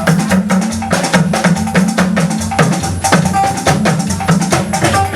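Church band music between sung lines: drums and shakers keeping a quick, steady beat over a bass line, without singing.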